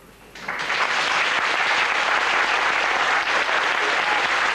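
An audience applauding, starting about half a second in and holding steady.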